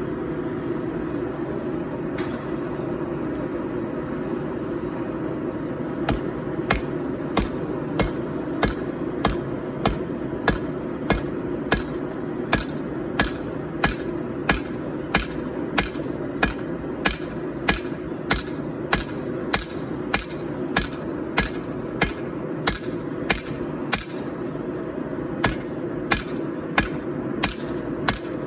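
Hand hammer striking hot 4140 steel on an anvil while forging a knife blade: a single blow about two seconds in, then an even run of ringing blows, roughly three every two seconds, from about six seconds in, with a brief pause near the end. Under it runs the steady roar of the gas forge.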